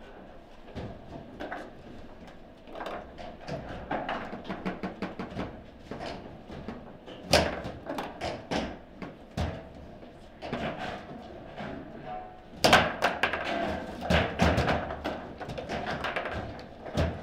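Table football in play: the ball knocking against the plastic figures and table walls, with the rods clacking in a rapid run of sharp clicks and knocks. Clusters of harder hits come about seven seconds in and again from about thirteen seconds on.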